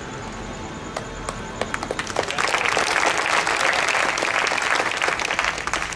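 Audience applause: many hands clapping, swelling about two seconds in, then thinning out near the end.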